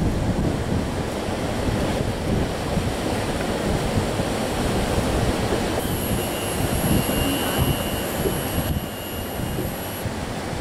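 Wind buffeting the microphone over water lapping against a small boat's hull. A thin, steady high whine joins in about six seconds in and stops about four seconds later.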